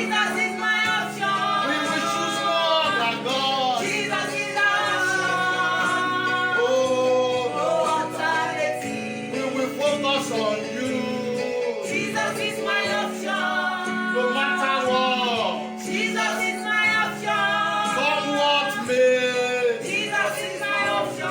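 Gospel song: a woman singing a melodic line over held accompaniment chords that change every few seconds.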